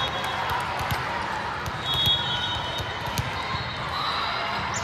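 Volleyball tournament hall ambience: repeated thuds of balls being hit and bouncing on the court over steady crowd chatter, with short high-pitched tones a few times.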